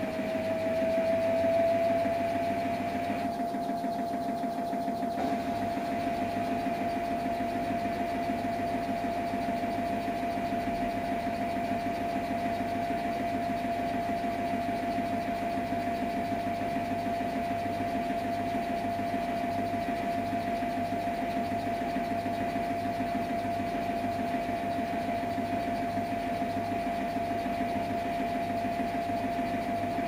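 Samsung Eco Bubble washing machine running: a steady motor whine that rises slightly in pitch over the first couple of seconds and then holds, over a low hum.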